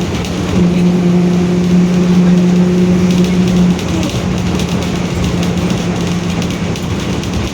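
Mercedes-Benz OF-1721 city bus under way, heard on board, with a steady droning whine from its growling differential; the whine drops off and weakens about four seconds in, leaving engine and road noise.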